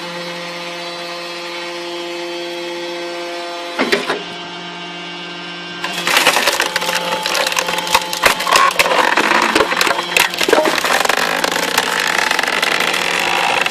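Homemade firewood processor running with a steady hum, a clunk about four seconds in. From about six seconds wood cracks and splinters loudly, a log being split.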